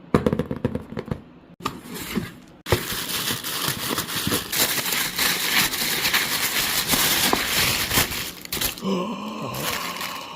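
Packaging of a new phone box being torn open and crinkled by hand: clicks, then a long stretch of dense rustling and tearing. A short pitched sound follows near the end.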